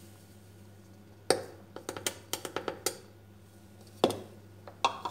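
Sugar being knocked out of a glass cup into a plastic mixing bowl: one sharp knock, then a quick run of light taps of glass on plastic, then a few more single knocks near the end.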